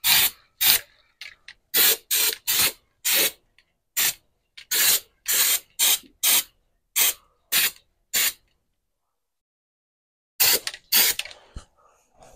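Undercoating being sprayed in short hissing bursts, about two a second, for most of the time. After a pause of about two seconds, two more bursts come near the end.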